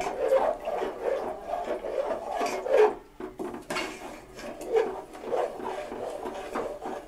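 A spoon stirring thick gravy in an aluminium pot, with irregular scraping strokes and a few light knocks against the pot. This is the flour slurry being stirred in to thicken the nihari.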